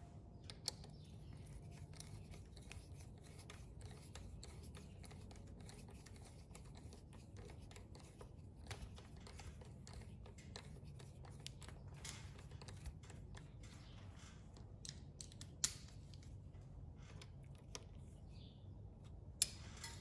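Hand socket ratchet clicking in runs as it tightens a bolt, with a few sharper metallic clicks standing out about a second in and near the end.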